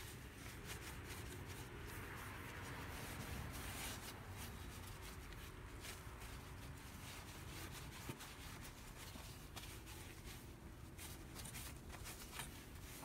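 Faint, irregular rubbing and swishing of a stain-soaked paint mitt wiped up and down a wooden deck spindle.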